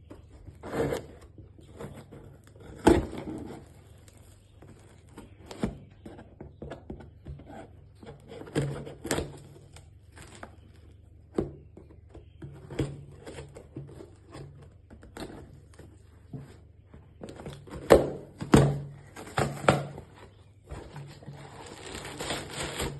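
Hands opening and handling a cardboard parcel: scattered knocks, thuds and scrapes of the box and its contents, with a longer rustle near the end, over a low steady hum.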